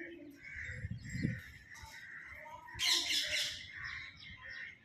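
Birds chirping and calling in short repeated notes, with a louder, noisier call about three seconds in.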